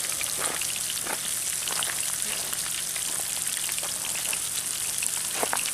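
Bluegill frying in hot grease in a pan: a steady sizzle with scattered small crackling pops.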